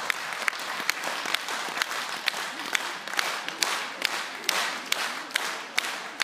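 Audience applauding, with one nearby person's claps standing out sharply about three times a second.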